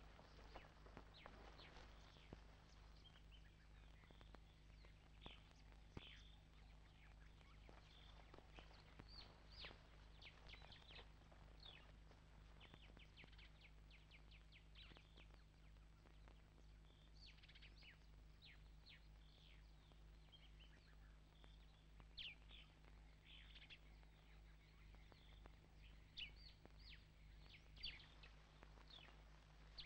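Faint chirping and trilling of small birds, in short calls scattered throughout, over a low steady hum.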